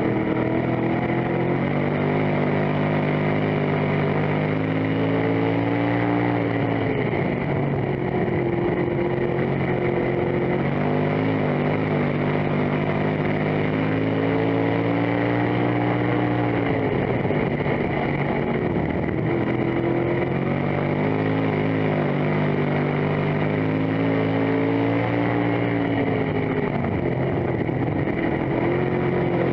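Race car engine heard from inside the cockpit while lapping a dirt oval: its pitch climbs steadily as the throttle is held, then drops sharply as the driver lifts, three times, about every ten seconds.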